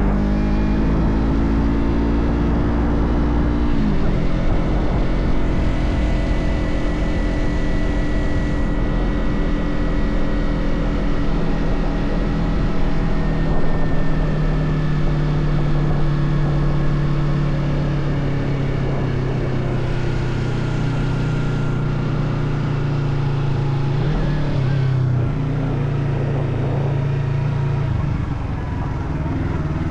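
Motorcycle engine running under way. The pitch climbs over the first few seconds, drops sharply about four seconds in, then holds fairly steady, with brief dips near the end.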